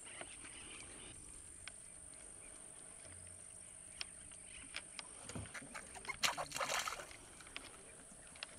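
Faint outdoor background with a few scattered small clicks and a short patch of rustling about six to seven seconds in.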